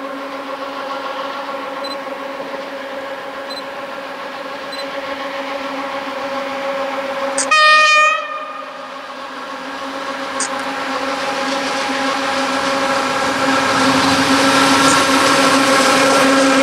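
PKP Cargo ET22 electric locomotive hauling loaded coal wagons approaching and drawing level, with a steady hum that grows louder as it nears. About eight seconds in comes one short horn blast, the loudest sound, and near the end the rumble of wheels on rail builds as the locomotive arrives.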